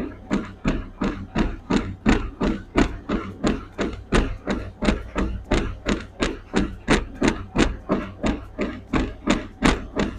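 Running footfalls pounding a treadmill deck in a steady rhythm, about three strikes a second, over the low steady hum of the treadmill.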